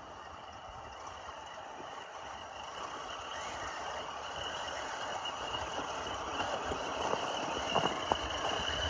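Traxxas TRX4 Sport RC crawler's brushless motor and gear drivetrain whining steadily as it drives through an icy water crossing, getting louder as it comes closer. A few sharp knocks near the end as it bumps over pieces of ice.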